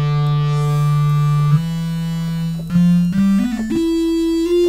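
Sylenth1 software synthesizer playing a bright lead patch, its filter A cutoff driven by a modulation envelope. It holds one low note for about a second and a half, then steps up through a run of shorter notes.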